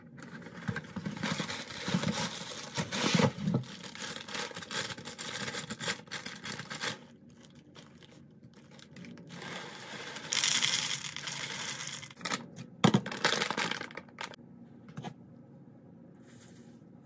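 Plastic cereal bag crinkling as plain Cheerios are poured from it into a bowl on a kitchen scale. Later a bag of chia seeds rustles and is set down on the scale with a few sharp knocks.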